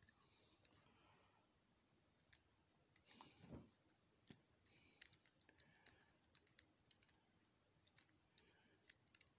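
Faint, irregular clicking of a cheap four-wheel combination padlock's dials being turned by hand, with a short scrape of handling about three seconds in.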